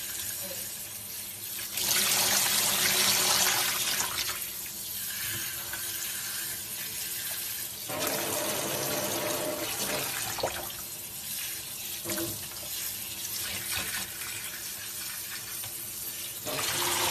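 Water running steadily from a bathtub spout and splashing onto a capuchin monkey and into the tub, louder for a couple of seconds near the start.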